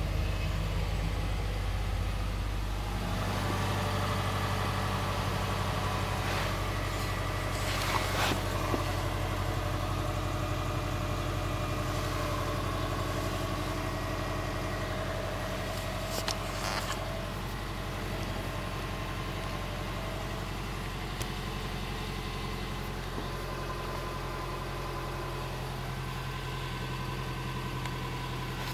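A 2005 Subaru Forester's flat-four boxer engine idling steadily at about 1,000 rpm while still cold, heard from inside the cabin. A couple of brief clicks come about 8 and 16 seconds in.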